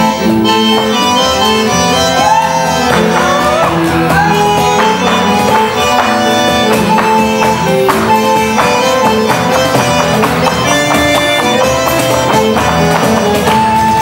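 Instrumental passage of Argentine folk music played live on stage: a bandoneon carries a melody of held reed notes over a steady band accompaniment, with no singing.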